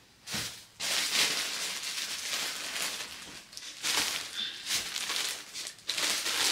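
Plastic packaging rustling and crinkling in uneven bursts as clothes are pulled out of their bags and unwrapped.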